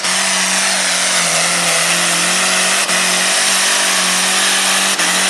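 Pulling tractor's BMW 535i inline six-cylinder engine running flat out under full load while it drags the weighted sled down the track. The revs sag slightly for a moment about a second in, then recover.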